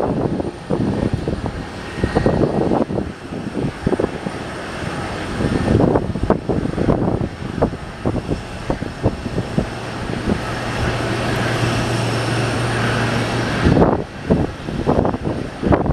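Jet airliner engines running on the ground, a steady noisy roar under uneven gusts of wind buffeting the microphone. The engine noise swells with a low hum over a few seconds late on, then drops off suddenly.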